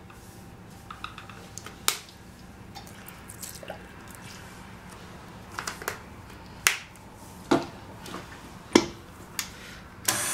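A handful of sharp clicks and knocks, small kitchen items handled around a steel mixing bowl, spread over several seconds. Right at the end a KitchenAid Classic stand mixer switches on and runs steadily.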